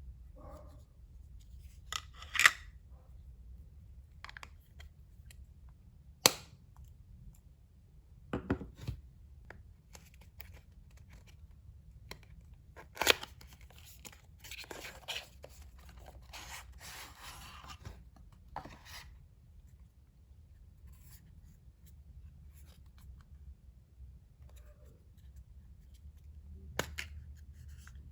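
Opening packages by hand: scissor snips, packaging being torn and rustled, with several sharp clicks and taps scattered through, and a busier stretch of rustling about halfway through.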